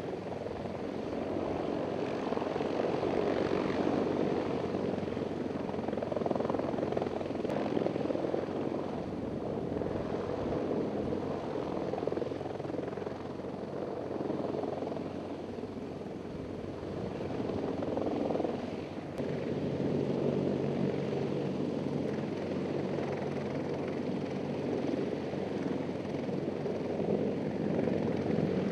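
CH-53E Super Stallion heavy-lift helicopter hovering and lifting a slung load: steady rotor and turbine noise that swells and eases a little, with steady low tones clearer in the last third.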